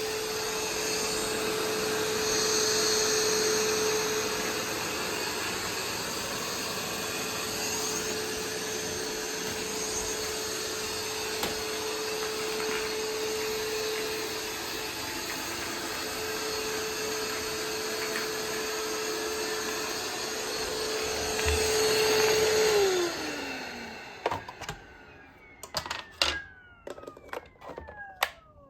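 Roomba 505 robot vacuum running, a steady motor whine over the suction noise. About 23 seconds in the motor winds down with a falling pitch, and the machine stops with a series of sharp clicks and a few falling whirs.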